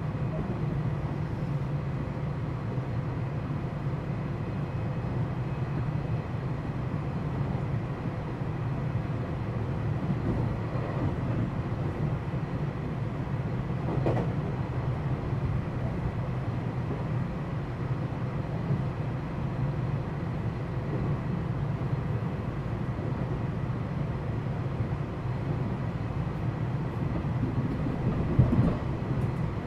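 Running sound inside a JR West 227 series electric train's motor car (KuMoHa 227-68): a steady rumble of wheels on rail with a few faint steady tones above it, a single click about halfway through and a louder knock near the end.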